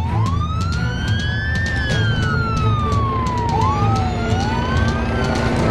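Police car siren wailing, its pitch rising and falling slowly over a couple of seconds each way, with a second siren glide overlapping in the second half, over a steady low rumble.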